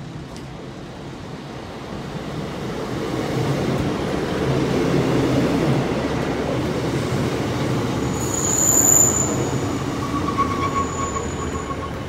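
Two coupled Class 150 Sprinter diesel multiple units running into the platform, their rumble building as they approach. A sharp high brake squeal comes about two-thirds of the way in, then a thinner squeal of wheels and brakes as they slow to a stop.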